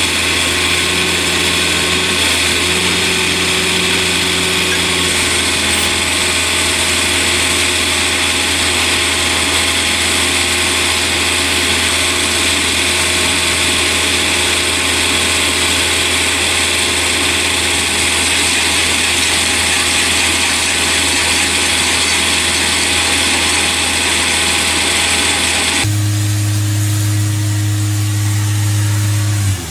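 Heavy machinery running steadily under load with a high, even whine and hiss. About 26 seconds in, the sound switches abruptly to a deeper, steady engine hum.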